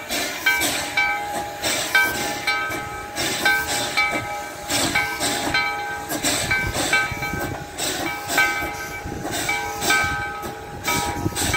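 Steam locomotive No. 81 moving slowly past with its exhaust chuffing, about two uneven beats a second, and steam hissing from around the cylinders. Steady ringing tones sound above the chuffs.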